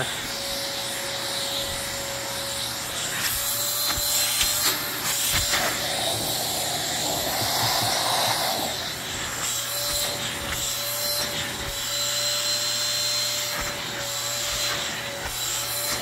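Electrolux canister vacuum cleaner running with a steady motor whine, while its attachment rubs and scrapes over a wooden floor.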